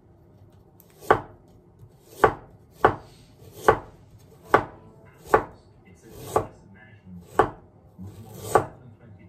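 Ceramic knife slicing a lemon on a wooden cutting board: nine sharp knocks of the blade hitting the board, about one a second, starting about a second in.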